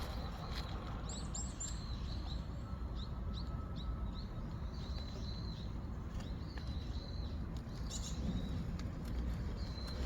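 Small birds chirping: a run of short, high, quickly repeated notes, over a steady low rumble.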